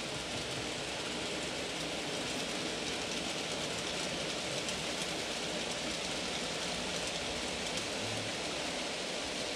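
N gauge model train running past on the track: a yellow model diesel locomotive hauling a rake of wagons, heard as a steady rushing hiss of wheels and motor with faint ticks from the wheels over the rail joints.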